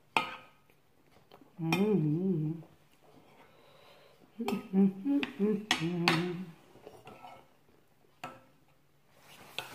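A metal spoon clinking against a ceramic soup bowl a few times while eating, with a woman humming a wavering "mmm" twice between spoonfuls.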